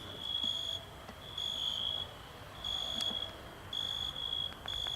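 Crickets chirping: high chirps repeating roughly once a second.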